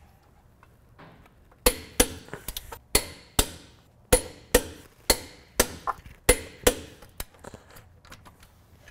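Click-type torque wrench breaking over as the wheel's lug nuts reach 135 foot-pounds: about a dozen sharp metallic clicks, mostly in pairs, between about two and seven seconds in.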